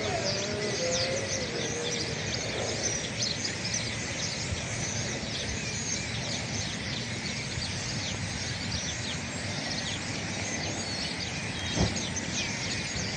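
A large flock of birds chirping and calling together in a dense, continuous chatter.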